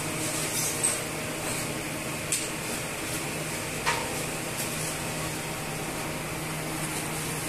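Steady machine hum and hiss of kitchen room noise. A few light clicks and knocks come from food being scooped and foam takeaway boxes being handled.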